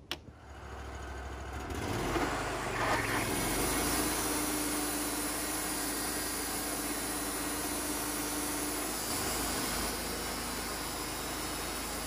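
Wood-Mizer portable band sawmill coming up to speed over the first couple of seconds, then running steadily as its band blade saws through a cedar cant, dropping slightly in level near the end.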